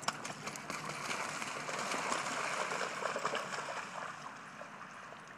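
A dog running and splashing through shallow floodwater: a hiss of splashing thick with small patters, building about a second in and dying away after about four seconds.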